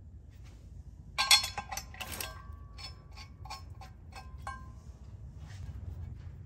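Metal clinking from the flex plate and its bolts being started onto the crankshaft. A quick cluster of clinks about a second in is followed by a few single clicks, and some of them leave a short metallic ring.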